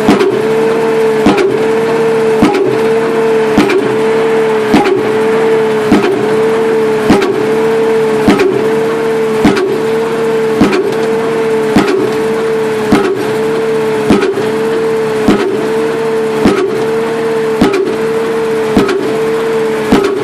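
Pile driver hammering a pile: a sharp strike about every 1.2 seconds in an even rhythm, over the steady drone of the rig's engine, which dips in pitch briefly at each blow.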